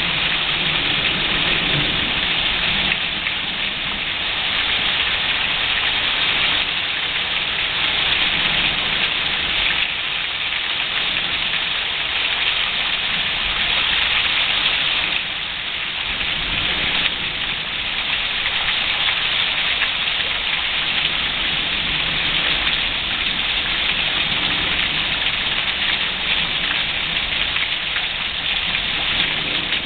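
Rain pouring steadily in a thunderstorm, a dense, even hiss that eases briefly about halfway through.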